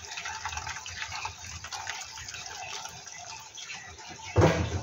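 Hot braising broth poured in a steady stream from a stainless steel stockpot into a stainless steel tray, splashing over chunks of pork and radish as the tray fills. A brief louder burst comes about four and a half seconds in.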